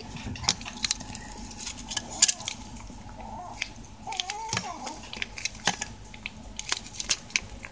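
A cat eating wet food from a plastic bowl: scattered small clicks and wet smacks of chewing and lapping, with a pouch of wet cat food being squeezed out over the bowl.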